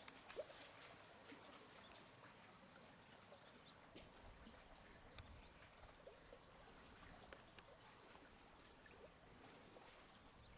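Near silence: faint outdoor ambience with scattered soft ticks and a little low rumble partway through.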